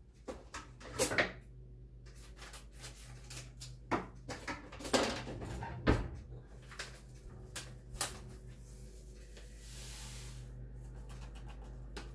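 Kitchen handling noises: a few separate knocks and clacks, like a cupboard door and things being set down on a counter, over a steady low hum. About ten seconds in comes a short papery hiss as a packet of instant dry milk powder is opened and poured into a measuring pitcher.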